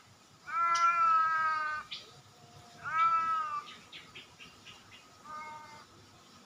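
Domestic cat meowing: three drawn-out meows, the first the longest and loudest starting about half a second in, a second loud one about three seconds in, and a shorter, fainter one near the end.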